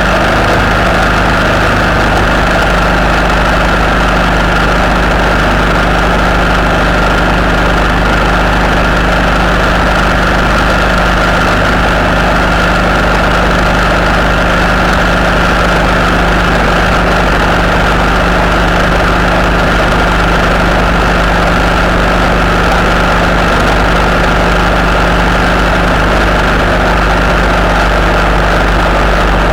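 Steady engine drone and road noise of a vehicle cruising at motorway speed, picked up by a camera mounted on the vehicle. A constant high-pitched whine runs over it, with no change in speed or pitch.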